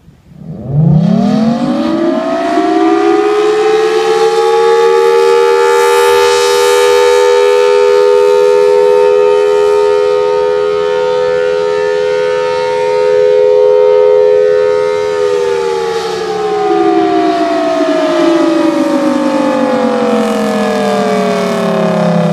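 Federal Signal Thunderbolt 1003 outdoor warning siren sounding a single long steady blast: it winds up quickly to a steady two-tone wail. The wail holds for about a quarter of a minute, then the siren shuts off and winds down with a slowly falling pitch. Its head rotates slowly, so the loudness swells and dips a little.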